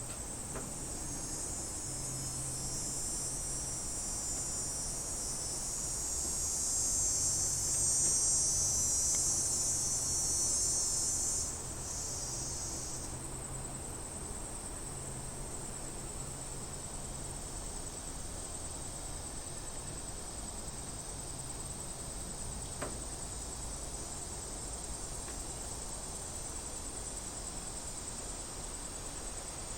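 Cicadas buzzing in a steady high drone. A louder, fuller buzz swells up in the first third and cuts off sharply, leaving the thinner steady drone behind.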